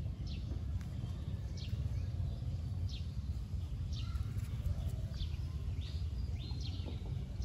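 A bird repeating a short, high, falling chirp about once a second, over a steady low rumble.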